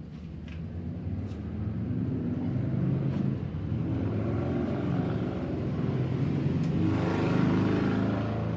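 A motor vehicle's engine passing close by, growing louder over a few seconds, staying loud, then fading near the end.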